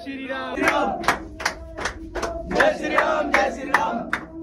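Crowd of men shouting and chanting together, over a run of sharp knocks about two or three a second.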